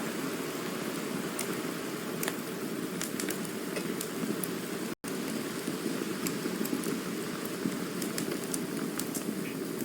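Campfire burning: a steady low rushing with scattered sharp crackles and pops of the burning wood. The sound cuts out for an instant about halfway through.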